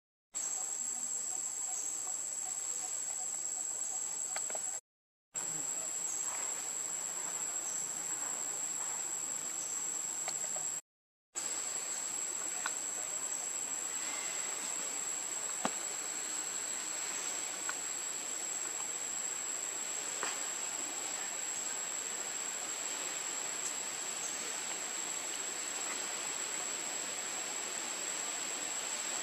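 Insects droning outdoors: one steady high-pitched whine over a hiss, with a few faint ticks. The sound cuts out completely twice, briefly, about five and eleven seconds in.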